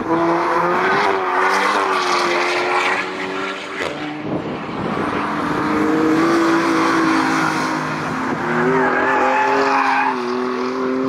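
Performance car engines running hard on a race circuit, their notes rising and falling as the cars accelerate and lift through the corners. The sound changes abruptly about four seconds in.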